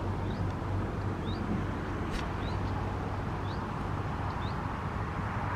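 A steady low rumble with a hum near 100 Hz, over which a small bird repeats a short rising chirp about once a second. A single sharp click comes about two seconds in.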